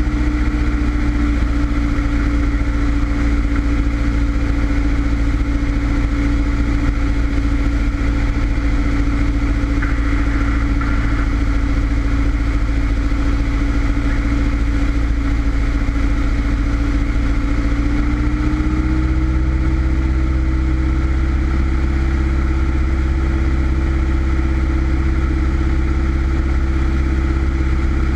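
Single-engine Cessna's engine and propeller droning steadily, heard inside the cabin. About two-thirds of the way through the engine note steps up slightly as the engine speed changes.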